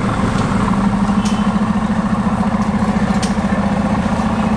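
Mercedes-AMG GT Roadster's twin-turbo V8 idling steadily, a low even pulsing exhaust note.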